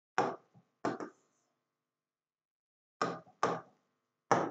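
Stylus tapping on an interactive whiteboard screen, about six short sharp taps in two groups, as on-screen tools and shapes are picked.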